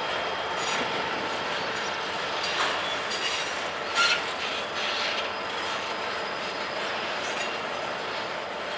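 Norfolk Southern covered hopper cars rolling past: a steady rush of steel wheels on rail with thin squealing tones. There is a short, louder sound about four seconds in.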